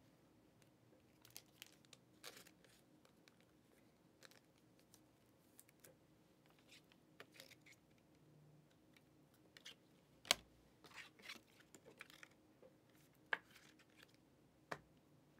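Near silence broken by faint rustles and light clicks of trading cards and their packaging being handled, with a sharper tap about ten seconds in and two more near the end.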